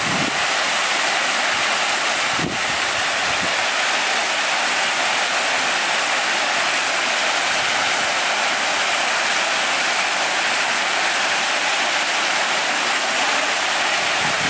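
Many vertical water jets of a large fountain falling back into its basin: a steady rush of splashing water.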